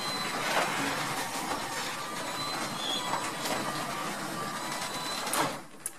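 Genie Stealth 750 (model 7055) 1.25 hp belt-drive garage door opener running, raising the door as it is jogged up with the up button while the up travel limit is set. It stops abruptly about five and a half seconds in, followed by a single short click.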